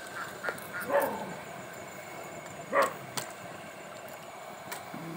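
A dog barks twice, about a second in and again near three seconds, over the steady sizzle of samosas deep-frying in a wide iron kadhai of oil.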